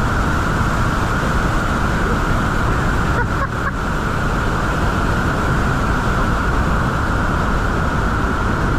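Niagara Falls roaring close by: a loud, steady rush of falling water with an even, whine-like edge held in it.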